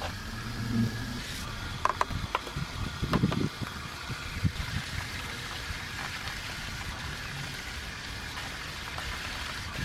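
Wet scrubbing on a car's alloy wheel: a detailing brush and a wash mitt rub over the soapy spokes. A few short clicks and knocks come about two to three and a half seconds in, followed by steady rubbing.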